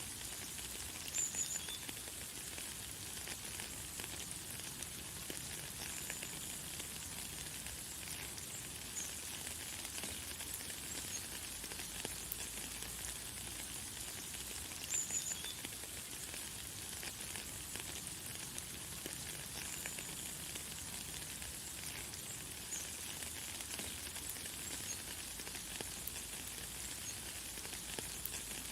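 Light, fine rain falling in a steady high hiss, with short high bird chirps now and then, the loudest about a second in and midway through.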